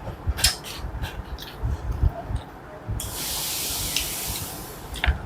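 Close-miked eating: chewing thumps and short mouth clicks. About three seconds in, a steady hiss lasts nearly two seconds.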